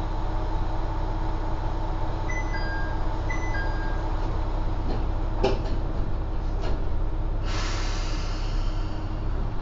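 Diesel engine of a Kanto Railway KiHa 5000 railcar idling with a steady hum while the car stands still, heard from inside. A two-note falling chime sounds twice a couple of seconds in, a couple of knocks follow around the middle, and a hiss of air lasts about two seconds near the end.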